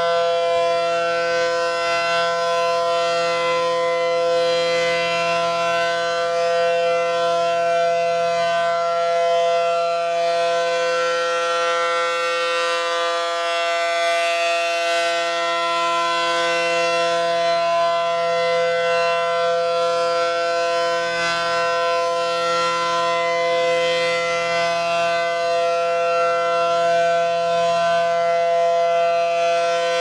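Marathon-labelled ACA Allertor rotating electromechanical siren sounding a chord held at a steady pitch. It swells and fades slowly as its two horns turn.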